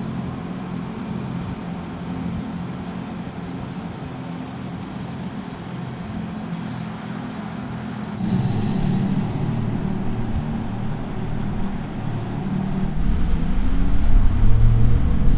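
Mercedes-AMG EQS 53 electric sedan driving: a low, steady hum of several pitched tones that gets louder and rises in pitch near the end as the car accelerates.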